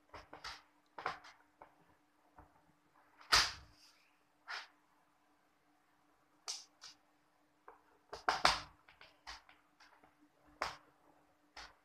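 Irregular clicks and knocks of a screwdriver on screws and of the plastic keyboard case being handled, the loudest about three and a half and eight and a half seconds in.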